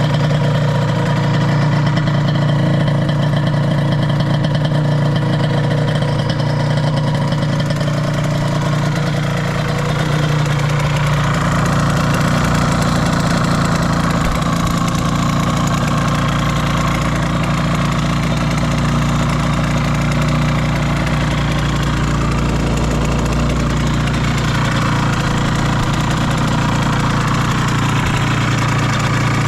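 Suzuki RGV Gamma 250 SP's two-stroke V-twin idling steadily through a Sugaya street expansion-chamber exhaust. The swapped-in engine runs without abnormal noises, as the seller states.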